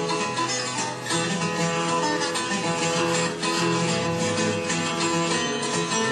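Fingerpicked guitar in open G tuning playing a blues passage without singing: low bass notes repeat under plucked treble notes.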